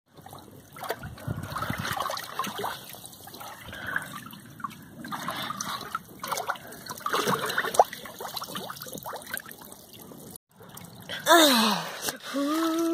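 Shallow pool water sloshing, trickling and splashing lightly as hands push plush toys through it. Near the end, a person's voice slides down in pitch, then holds a steady note.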